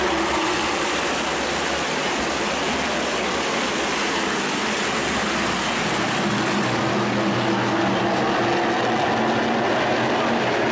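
A field of NASCAR Whelen Modified race cars lapping the oval together, their V8 engines making a loud, steady noise of many cars at once.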